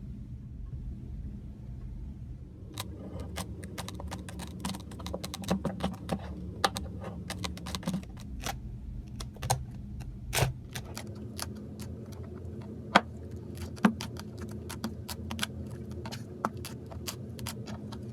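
Slime being squeezed and poked, giving irregular sharp clicks and pops that start about three seconds in, over a low steady hum.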